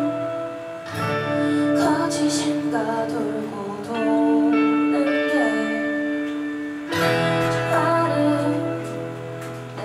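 A woman singing a slow song to acoustic and electric guitars in a live performance. New chords are struck about a second in and again about seven seconds in.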